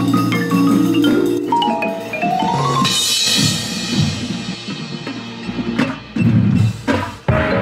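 Front-ensemble percussion playing: marimbas struck with yarn mallets in quick runs of notes, a cymbal crash about three seconds in, and heavy low hits near the end.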